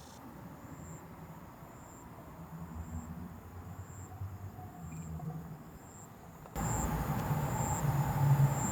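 A high insect chirp repeating about once a second over a faint low hum. About six and a half seconds in, a louder steady low rumble with hiss cuts in suddenly, and the chirping goes on over it.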